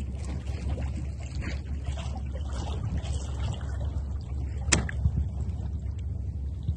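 Wind buffeting the microphone as a steady low rumble, with faint small splashes and ticks of water around the board. One sharper knock comes about two-thirds of the way through.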